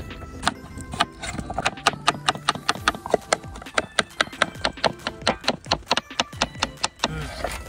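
Kitchen knife slicing onion and bell peppers on a wooden cutting board: a quick series of crisp chops, several a second, each knocking the blade on the board.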